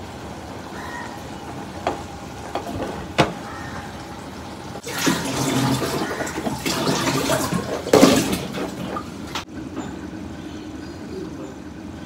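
A few light knocks, then water gushing for about four and a half seconds before cutting off suddenly.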